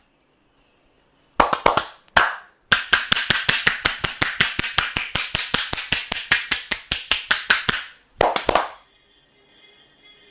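Percussive massage strokes, a barber's hands striking the body: a few separate slaps, then a long fast run of rhythmic chopping slaps, about eight a second, ending in a last few strikes.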